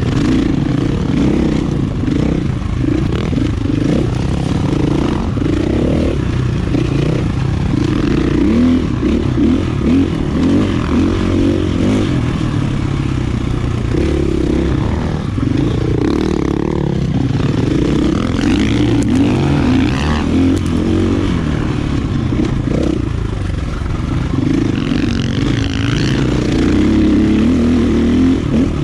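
KTM 450 EXC dirt bike's single-cylinder four-stroke engine running under load and revving up and down as it is ridden.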